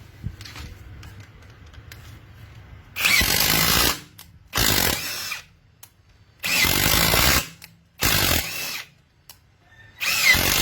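Bosch cordless hand drill run in five short trigger bursts of about a second each, with pauses between.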